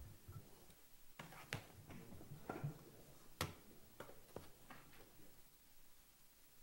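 Faint room quiet broken by about seven scattered, sharp clicks and knocks over the first five seconds, the loudest about three and a half seconds in.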